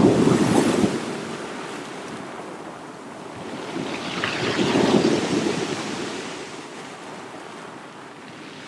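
Sea waves washing in and drawing back, a rushing noise that swells and fades about every five seconds: loud at the start, swelling again about halfway through and rising once more near the end.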